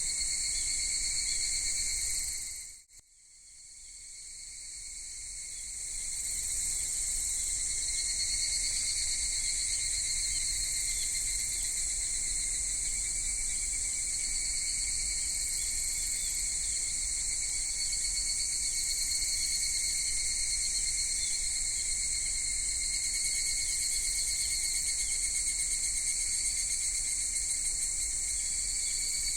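Dense, steady chorus of cicadas singing. It fades out sharply about three seconds in and swells back over the next few seconds.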